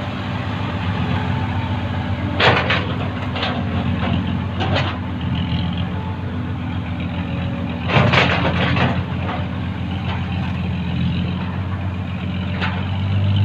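Dump truck's diesel engine running steadily close by, with short hissing bursts of air, the loudest about two and a half seconds in and again about eight seconds in.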